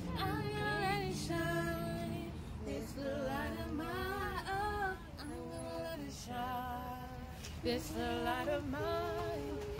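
A female voice singing a melody in held, wavering notes, phrase after phrase, without instruments.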